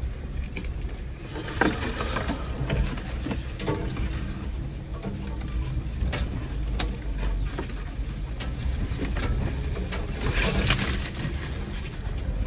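Jeep crawling slowly along a wooded dirt trail: a low, steady drivetrain rumble with scattered snaps and crackles of twigs and leaves under the tyres, and a longer brushing scrape about ten seconds in.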